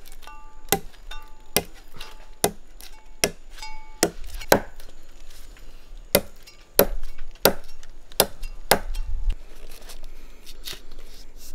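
Machete chopping into a tree trunk to cut away its bark: a long series of sharp strikes about one a second, some ringing briefly.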